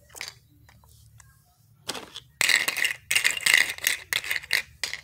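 Plastic toy food pieces rattling and clattering in a plastic toy bowl as a plastic spoon stirs among them: a couple of light clicks, then from about halfway through a busy run of quick clatters.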